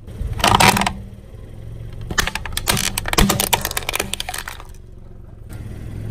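A car tyre crushing small brittle objects: a burst of crunching about half a second in, then a run of sharp cracks and snaps from about two to four seconds in. Under it runs the low steady hum of the car's idling engine.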